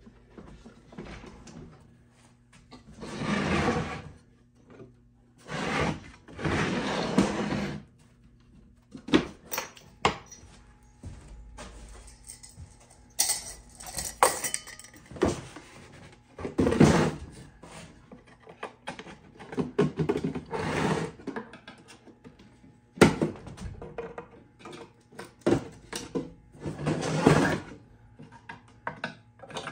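Old wooden machinist chest being taken apart by hand: wooden panels and trays sliding and scraping in stretches of a second or two, with sharp knocks as pieces are lifted off and set down.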